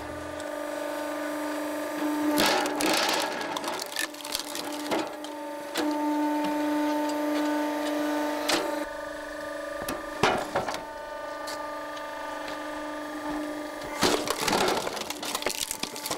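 Posch SplitMaster 9-tonne horizontal log splitter running with a steady hum from its hydraulic drive, while a log is forced through the wedge. Several sharp cracks and knocks as the wood splits and the pieces fall.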